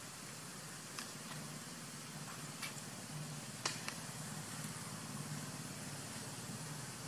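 Steady outdoor background hiss with a low hum that comes and goes. Four sharp clicks or ticks fall in the first half, the loudest just past the middle of that stretch.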